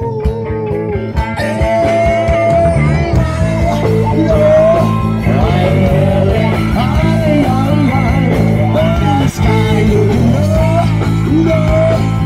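Rock band playing live: electric guitar and bass over a steady drum beat, with a wavering melodic lead line on top.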